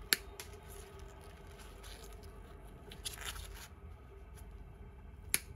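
Hand handling of a pair of wire-cutting pliers and a cut electrical wire: a sharp click just after the start and another near the end, with soft scraping and rustling between.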